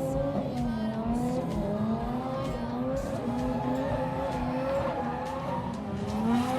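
Drift car engine at high revs, its pitch rising and falling over and over as the throttle is worked through the drift, with tyres squealing on the tarmac.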